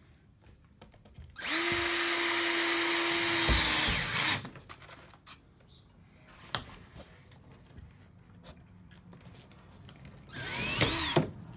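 Cordless drill driving screws into luan plywood underlayment: one steady run of about two and a half seconds that winds down, then a shorter burst near the end that rises and falls in pitch.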